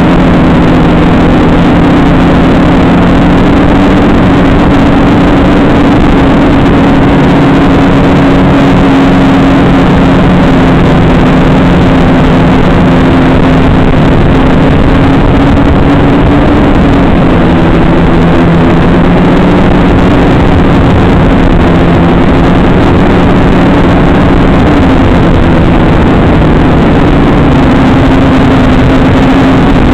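XK250 quadcopter's motors and propellers humming steadily and loudly, picked up by the drone's own onboard camera microphone, with the hum's pitch shifting a little as the throttle changes about 17 and 25 seconds in.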